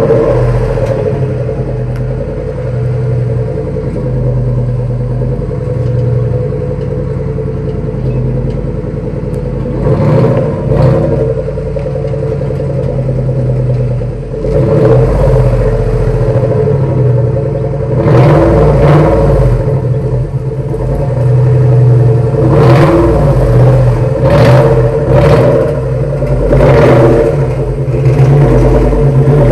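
Car engine running, with several louder revs in the second half.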